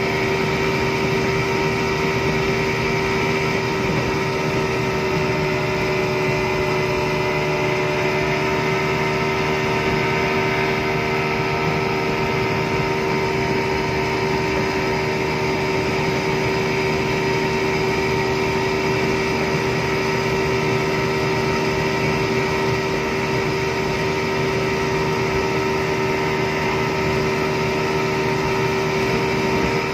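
Yamaha 200 hp two-stroke outboard motor running steadily at speed, holding one even pitch, with water rushing and spraying past the hull.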